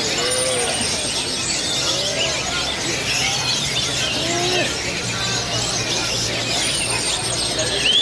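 Many orange-headed thrushes singing at once in a contest: a dense, unbroken tangle of quick whistled phrases and chirps, with a murmur of human voices underneath.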